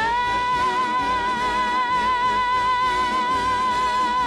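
Female singer belting one long high note with a steady vibrato, scooping up into it at the start and then holding it, over orchestral accompaniment.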